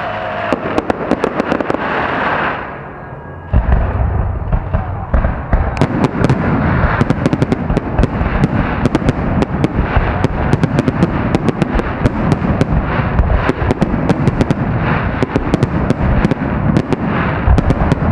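Fireworks display: shells bursting in rapid succession with dense crackling. A brief lull about three seconds in, then a heavy, continuous barrage of booms and crackle.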